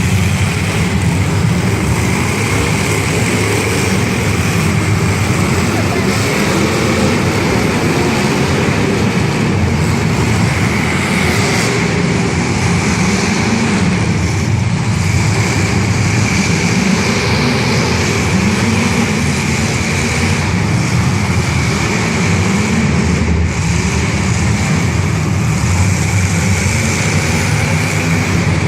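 Demolition derby car engines running and revving, their pitch rising and falling over and over under a steady din.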